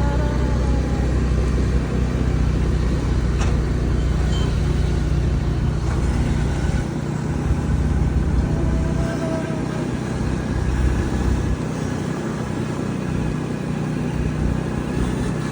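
Steady low rumble of a motor vehicle running, with no sharp events.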